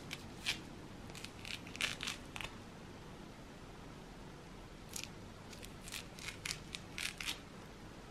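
Orange peel being pried and torn off the fruit by hand, giving crisp tearing and snapping crackles in two bouts, over the first couple of seconds and again from about five seconds in.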